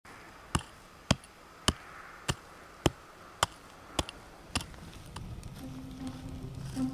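A short-handled hand tool chopping into hard, stony ground: eight sharp strikes, evenly spaced a little over half a second apart. Faint music comes in near the end.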